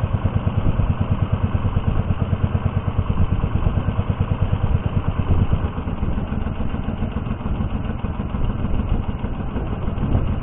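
Small boat engine running steadily at low speed with a fast, even pulsing beat, slightly quieter after about six seconds.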